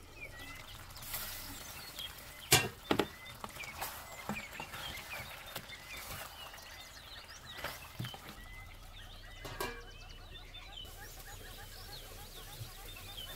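Birds chirping steadily in the background, broken by a few sharp metallic clinks of a steel pot lid and a spoon against the cooking pot. The loudest clinks are a pair about two and a half and three seconds in, with lighter ones later.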